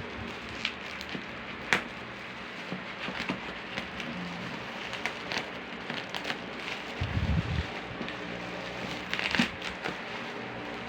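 Plastic parcel packaging crinkling and tearing as it is pulled open by hand without scissors, a run of irregular rustles and crackles with a sharper rip near 2 s and again near 9 s and a dull bump about seven seconds in.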